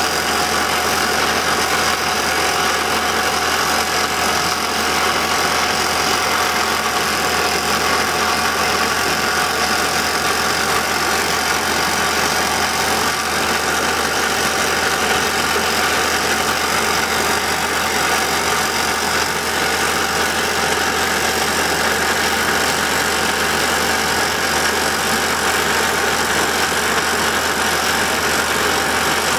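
Montabert HC170 hydraulic top-hammer rock drill hammering steadily as it drills down into rock, together with the drilling rig's engine running. The sound is loud and even, with no pauses.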